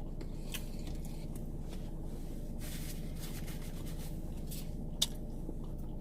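Steady low hum inside a car, with light rustling and scraping of handled food and wrapping, and one sharp click about five seconds in.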